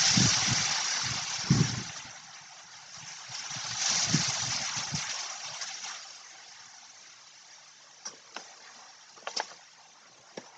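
Wind gusting on the microphone and through the leaves, a hissing rush with low buffeting that swells at the start and again about four seconds in, then dies down. Near the end come a few short, sharp crackles.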